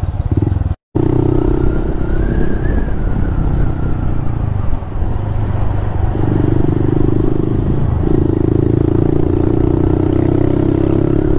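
Honda Monkey 125's single-cylinder four-stroke engine running as the bike rides along, the note easing off for a couple of seconds around the middle before picking up again. There is a brief cut to silence just under a second in.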